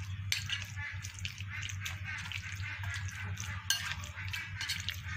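Raw chicken pieces in a yogurt, lemon and spice marinade being stirred in a glass bowl: wet mixing noise with many light clinks against the glass.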